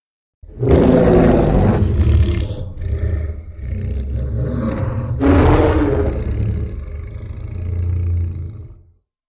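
Fan-made Godzilla roar sound effect, modelled on the 2004 Final Wars Godzilla: a loud, long roar that starts about half a second in, surges again about halfway through, and fades out just before the end.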